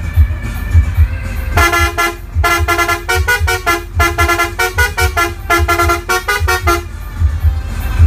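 A bus's musical horn playing a rapid tune of short notes that step between pitches, starting about one and a half seconds in and stopping near seven seconds. Background music with a heavy bass beat plays throughout.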